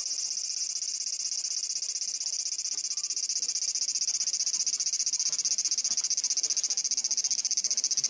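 Cicada calling: a loud, continuous high-pitched buzz made of very rapid pulses, growing a little louder and more throbbing about halfway through.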